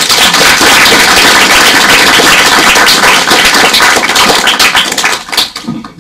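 A roomful of people applauding: dense clapping that starts at once and dies away near the end.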